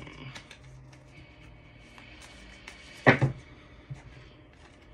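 A deck of cards being shuffled by hand: soft rustling and light clicks, with one sharp, much louder clack about three seconds in.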